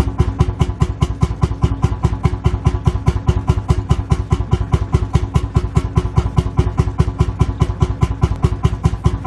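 Lanz Bulldog tractor's single-cylinder two-stroke hot-bulb engine idling, each firing stroke a separate thump in a fast, even beat.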